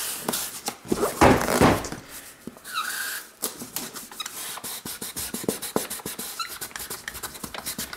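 Fat felt-tip marker scribbling on a cardboard box to blank out printed branding, the tip rubbing and squeaking on the cardboard. Partway through it turns into quick, even back-and-forth strokes.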